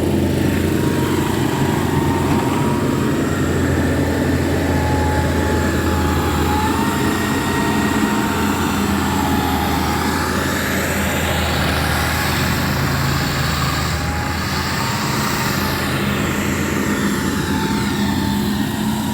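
Heavy engine of a vehicle or road-works machine running steadily at the road repair, with a slowly wavering whine above the low hum.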